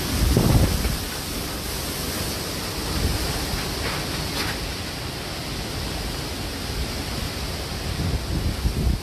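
Cyclone wind rushing steadily, with gusts buffeting the phone's microphone about half a second in and again near the end.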